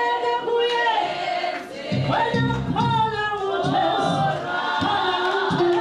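A woman singing into a microphone, with other voices joining in choir-style.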